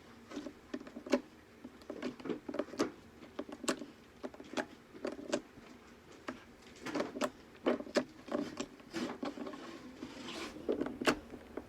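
Homemade slime being squeezed and worked by hand, making irregular wet clicks and small pops.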